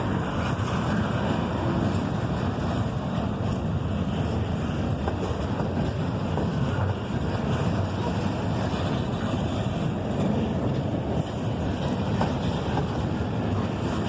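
Freight train rolling past, its cars making a steady, even rumble.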